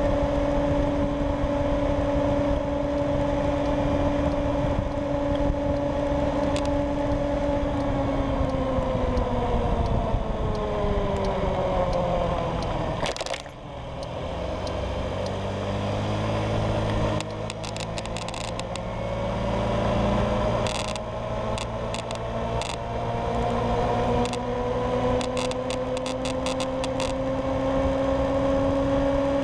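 Honda Ruckus scooter engine at a steady cruise, its note dropping as the scooter slows to near idle through a turn, then rising steadily as it accelerates back up to cruising speed. Wind rush on the microphone throughout, with a patch of clicks during the pick-up.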